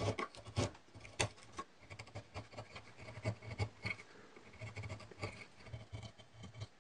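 Hand carving gouge paring wood: a run of short, irregular scraping cuts and clicks as it carves a groove in a wooden block.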